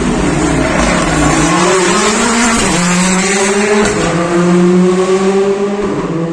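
R5 rally car's 1.6-litre turbocharged four-cylinder engine at full effort on an asphalt stage. The engine pitch dips, jumps up about two and a half seconds in, then climbs steadily as the car accelerates.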